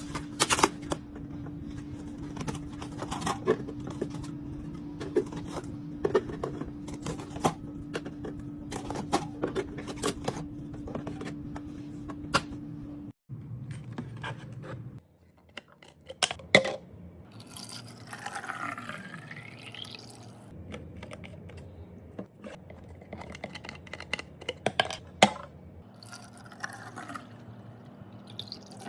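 Liquid being poured and filled into containers, with many clicks and taps from bottles and containers being handled. A steady low hum runs through the first half and stops suddenly about halfway.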